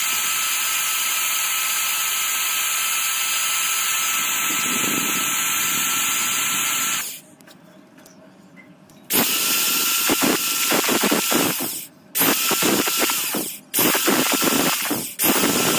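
Electric drill spinning a wooden dowel against sandpaper: a steady motor whine with the hiss of sanding. It stops about seven seconds in, then runs again in four short bursts of a second or two each, with a rougher scraping as a blade cuts grooves into the turning wood.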